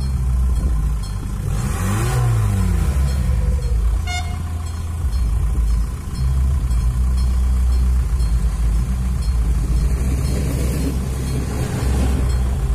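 RegioSpider diesel railcar approaching and rolling onto the level crossing, its engine giving a steady low drone. A pass-by sweep rises and falls about two seconds in, and there is a very short tone about four seconds in.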